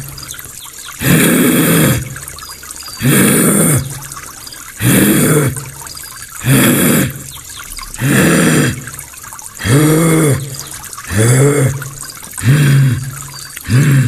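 A man imitating an animal call with his voice: a series of deep, breathy grunting calls, each rising then falling in pitch. They come about one every one and a half seconds, growing shorter and faster toward the end.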